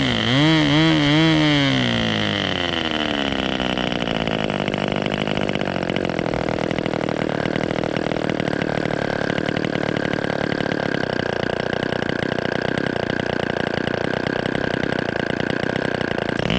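O.S. Max 35 R/C two-stroke glow engine turning a 10x6 propeller, throttled back from about 10,000 rpm. Its pitch drops sharply, wavers for a second or so, then sinks over the next two seconds to a steady low idle of about 2,000 rpm. It starts to rev up again at the very end.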